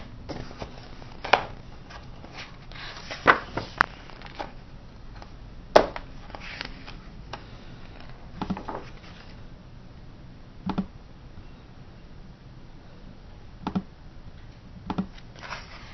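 Pages of a hardcover picture book being turned and handled by hand: a series of short papery rustles and taps, several seconds apart.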